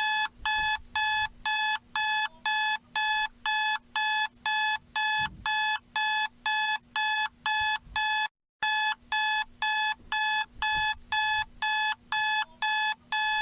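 Electronic alarm clock beeping on and on in evenly spaced high beeps, about two a second, with a brief cut-out about eight seconds in.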